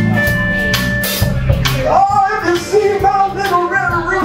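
Live blues band playing a slow blues, with drum kit, electric bass and electric guitar. A wavering, bending melody line comes in about halfway through.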